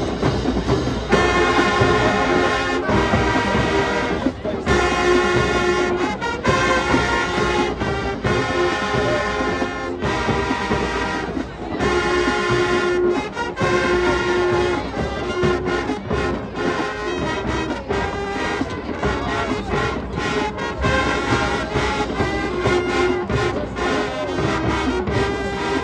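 High school marching band playing, the brass section holding chords that change every second or two over drums.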